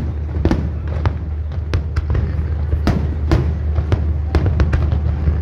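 Fireworks exploding in an irregular string of bangs and pops, two or three a second, over a steady low rumble.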